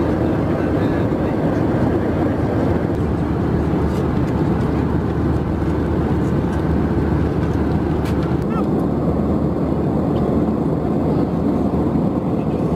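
Steady cabin noise of an Airbus A320 in cruise: a constant rush of airflow and engine sound heard from inside the passenger cabin, with a few faint clicks.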